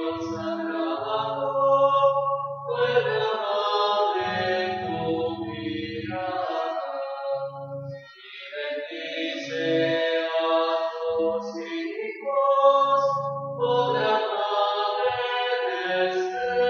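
A Marian hymn sung in long, held phrases, with a short break about eight seconds in.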